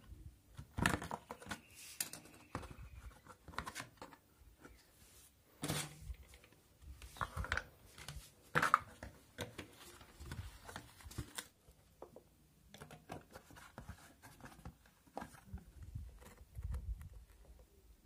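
Plastic bottle and plastic tray being handled: irregular crinkles, scrapes and knocks, a few sharper ones standing out.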